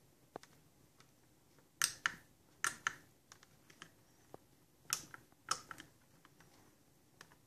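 Irregular clicks and taps from buttons being pressed on a wireless remote control for smart tint film, a few louder ones with a short crackly hiss after them.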